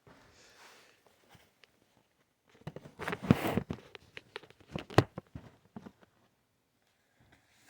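Cardboard shipping box being handled and opened: a burst of rustling and tearing with sharp clicks about three seconds in, then scattered knocks and rustles.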